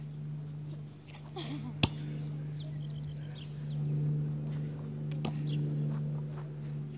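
A ball being played by hand, with two sharp slaps about two seconds in and again about five seconds in, over a steady low hum.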